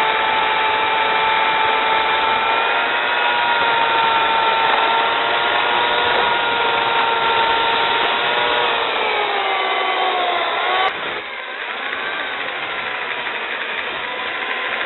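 Electric drill with a sanding disc running and power-sanding a spinning wooden hat blank on a lathe: a steady motor whine over a rasping sanding hiss. About nine seconds in the whine slides down in pitch, and near eleven seconds the sound drops abruptly to a quieter, steady running and sanding noise.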